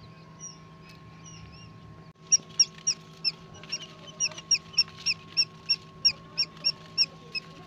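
Day-old quail chicks peeping: a few faint peeps at first, then, after a break about two seconds in, loud high peeps repeated about four times a second. A steady low hum runs underneath.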